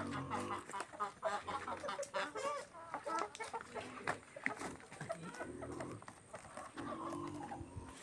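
Domestic hens clucking, many short repeated calls.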